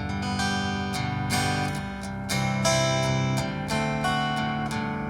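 Acoustic guitar strummed in a steady rhythm through changing chords: the instrumental lead-in to a gospel song.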